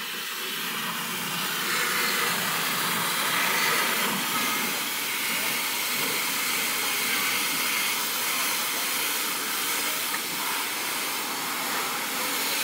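High-pressure water spray from a car wash wand hissing steadily as it hits a van's body, rising over the first couple of seconds and then holding even.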